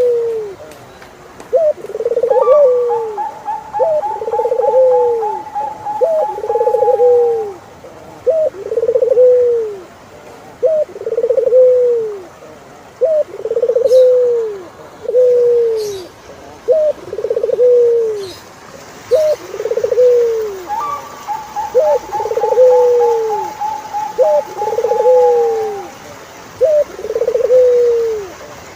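Turtle doves cooing: a steady run of two-part coos, a short note followed by a longer arching one, roughly one every two seconds. Twice a higher trilling call runs for several seconds over the coos.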